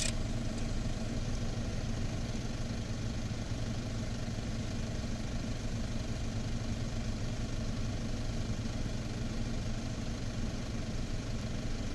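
Car engine idling steadily, a low even hum heard from inside the stationary vehicle.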